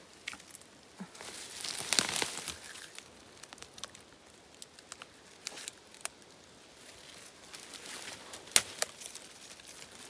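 Oyster mushrooms being pulled off a birch trunk by hand: intermittent rustling, crackling and tearing, with scattered clicks and one sharp snap about eight and a half seconds in.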